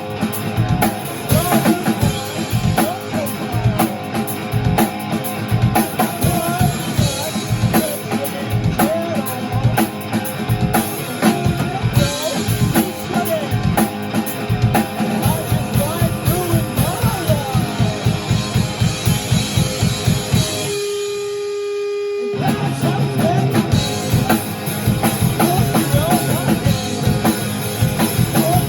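Rock band playing: drum kit, electric guitar and singing. Near the end the band stops for about a second and a half, leaving one held note, then comes back in together.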